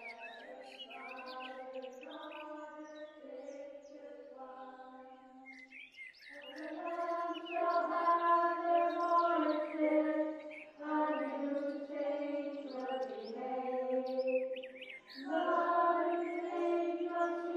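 Film score of wordless choir-like voices holding slow, sustained chords that change about once a second, with birds chirping over it at first. The music swells louder about six seconds in.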